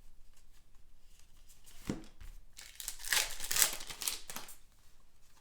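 Trading cards and their plastic or foil wrappers being handled: crinkling and rustling, loudest about three to four seconds in, with a few light clicks.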